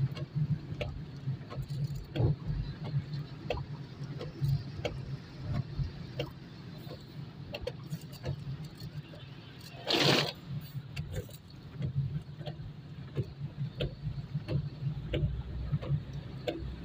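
Inside a moving car's cabin in heavy rain: a steady low engine and road rumble with scattered sharp ticks of raindrops hitting the windshield and roof. A brief loud whoosh comes about ten seconds in.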